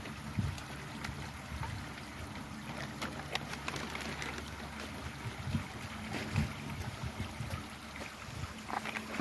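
Garden koi pond ambience: a steady low hum with water trickling, and a few faint clicks a little after three seconds in.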